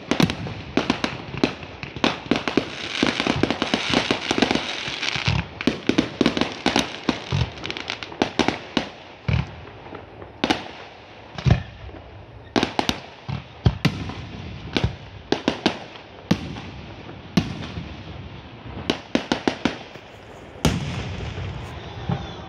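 Aerial fireworks going off in a rapid string of sharp bangs, thick with crackling in the first few seconds, then single bangs spaced further apart.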